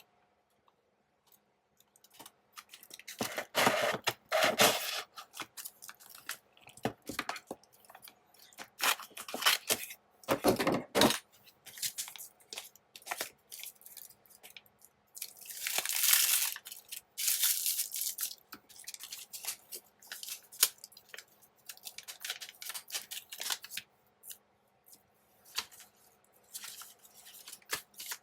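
Paper die cuts being run through a Xyron sticker maker: irregular crackling, scraping and tearing of paper and adhesive backing in bursts, with pauses of paper handling between them.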